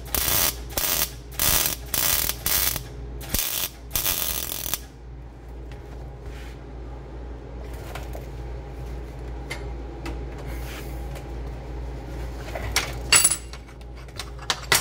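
MIG welder (Lincoln Power MIG 215, 0.035-inch ER70S-6 wire under CO2 gas) arcing in several short bursts for about the first five seconds, filling a hole in thin sheet steel against a copper backing, then stopping. Light metallic clinks near the end as the welded plate is handled.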